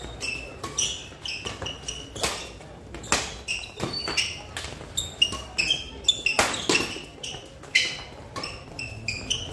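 Badminton doubles rally: rackets striking the shuttlecock in a fast string of sharp hits, about one every half second to a second, with short high squeaks of shoes on the court floor between shots, echoing in a large hall.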